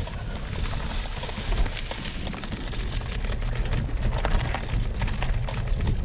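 Road bicycle riding over rough, bumpy ground: a steady low rumble with many small irregular clicks and rattles from the tyres and frame.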